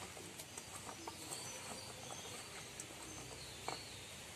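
Hands tossing and turning cut rose apple pieces in a stainless-steel bowl: soft patter and scattered light clicks of wet fruit against the metal, with one sharper click near the end. A faint steady high hiss runs underneath.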